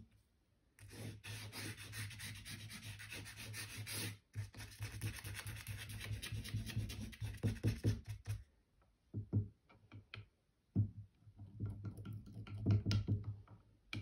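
An ink-dipped twig scratching quickly back and forth across paper, a dense run of rapid strokes lasting several seconds, then a few shorter, separate scratches and taps near the end.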